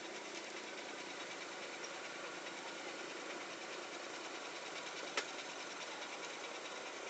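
Small boat engine running steadily with a fast, even chatter, and a single sharp click about five seconds in.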